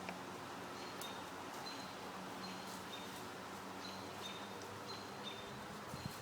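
Outdoor ambience with a bird repeating short, high chirps about once or twice a second over a faint, steady hum.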